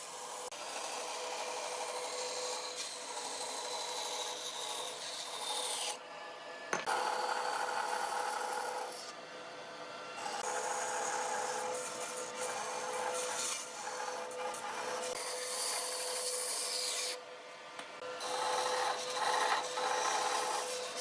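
Wood being abraded by a machine, a rough rubbing noise over a steady hum. Twice, about six and seventeen seconds in, a high whine falls away and the rubbing briefly stops.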